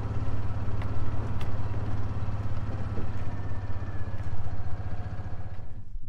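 An engine running steadily with a low, even drone, the sort of small motor on a farm utility vehicle; the higher rattle and noise over it drop away sharply just before the end.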